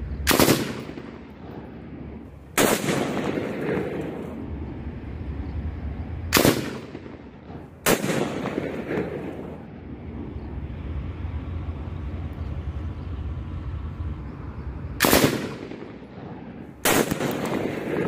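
M249 light machine gun in .223 (5.56 mm) firing six times, one to several seconds apart, each shot trailing off in echo.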